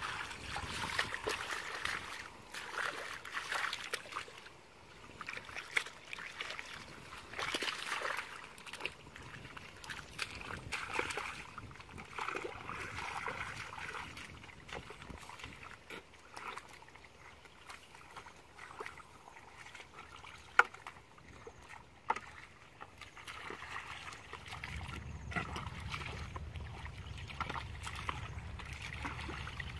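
Hands groping through mud and shallow muddy water, with irregular small splashes, sloshes and squelches. A couple of sharper clicks come about two-thirds of the way through.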